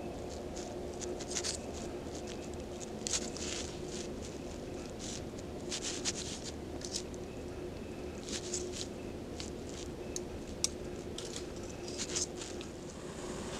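Knife slicing raw steak on a foam meat tray: irregular short scrapes and clicks. Light crackling of a small stick fire in a rocket stove, with a faint steady hum underneath.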